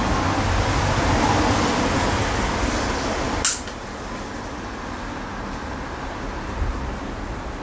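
Electric arc welding on a steel motorcycle frame: the arc runs steadily, then stops with a sharp click about three and a half seconds in. A quieter steady noise continues after it.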